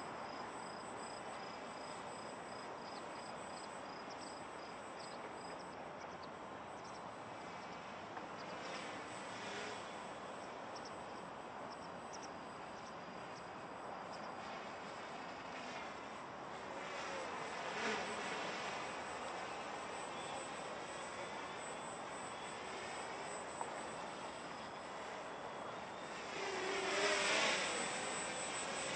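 Walkera Hoten-X quadcopter's electric motors and propellers buzzing faintly at a distance, with two brief swells in the middle as it comes nearer. The buzz grows louder near the end as the quadcopter flies in close.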